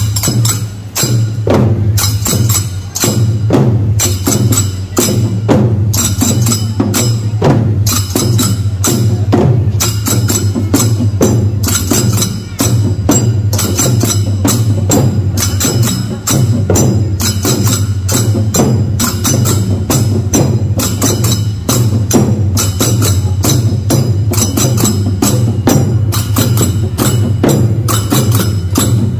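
Damam drum beaten with a stick in a fast, steady rhythm, with brass hand-held cymbals clashing along with the beat and ringing.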